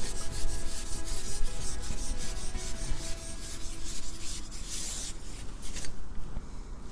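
Fabric rubbing and scraping close against the microphone, over a low rumble of wind on the microphone. The rubbing thins out near the end.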